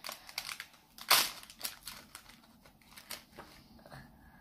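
A small plastic-foil surprise packet crinkling and crackling in a child's fingers as she works at opening it, with one louder crackle about a second in.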